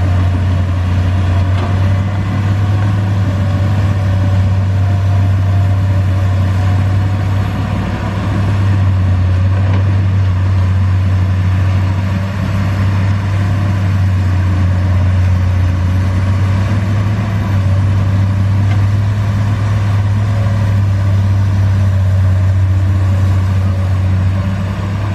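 Komatsu PC200 excavator's six-cylinder diesel engine running steadily with a strong low hum while the machine digs.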